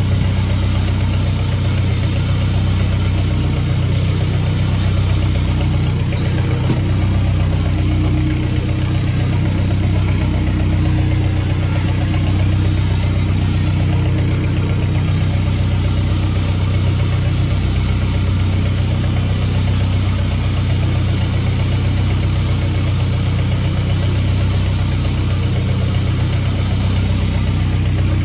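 Boat engine running steadily at an even, low pitch.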